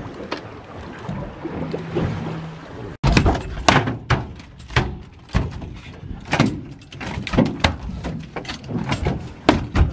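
Wind and boat noise at first. Then, after a cut, a large halibut thrashes on the boat's deck, making a run of loud, heavy thuds and slaps about one or two a second.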